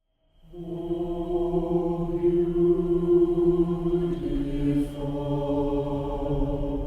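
Background music: a held chord fades in, then changes to a lower chord about four seconds in.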